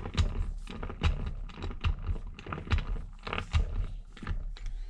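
Chuck key turning the scroll of a rusty three-jaw lathe chuck to back the jaws out: an irregular run of gritty scraping and clicking strokes, metal on metal, from the rust and dirt in the chuck.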